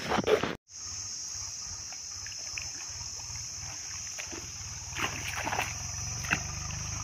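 A fish leaping and splashing at the surface of the pond, with a few splashes about five seconds in, over a steady high-pitched hiss. A brief loud rustle at the very start is cut off abruptly.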